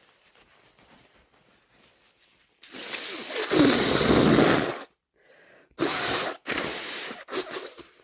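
A person with a head cold blowing a congested nose: one long blow of about two seconds, then three shorter blows in quick succession.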